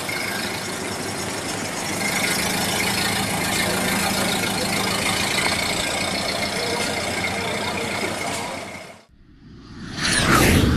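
Vintage car's engine running as it drives slowly along the street, cutting off abruptly about nine seconds in. About a second later comes a short, loud whoosh sound effect.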